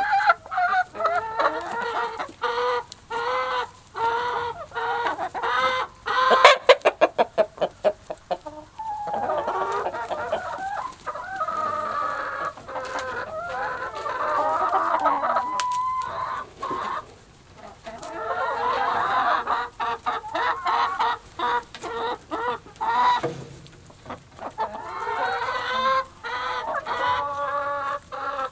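A flock of chickens clucking and squawking continuously, many calls overlapping, with a quick run of short, sharp notes, about six a second, some seven seconds in.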